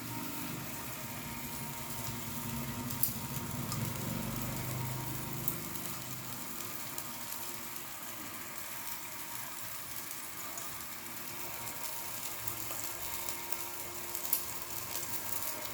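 Chicken sizzling as it roasts on an electric rotisserie grill, with a few sharp pops of spitting fat.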